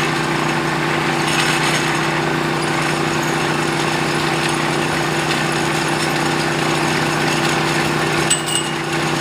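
Small engine of a bore-well drilling machine running at a steady speed. A short metallic clink comes near the end.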